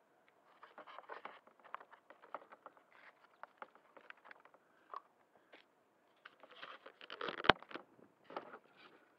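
Irregular rustling and clicking from hands handling the foam flying wing that carries the camera, with one sharp click about seven and a half seconds in. No motor is running.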